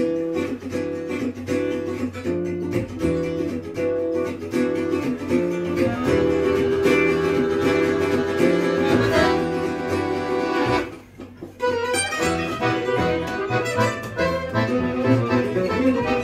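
A small acoustic band playing: plucked guitar and double bass keep a steady rhythm under accordion. The music starts suddenly, breaks off briefly about eleven seconds in, then comes back in.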